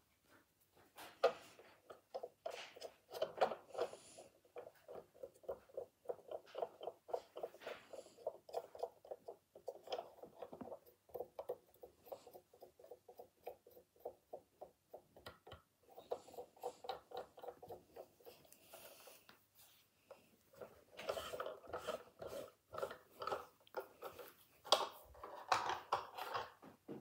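Rapid, light scratchy rubbing and clicking as a cotton swab scrubs the plastic wheel of a scale model car and fingers turn and handle the wheel, in long runs with a pause partway through.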